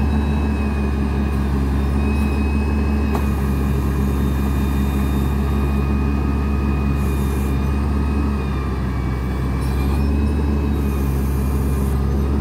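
The diesel engine of an XCMG GR1803BR motor grader running hard under load as the stuck machine works to free itself from mud: a steady low drone with a high whine over it.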